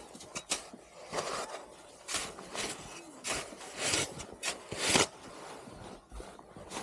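Snow being scraped and cut with hand tools in short, irregular strokes while snow-pit walls are cleaned out for stability tests. The strongest stroke comes about five seconds in.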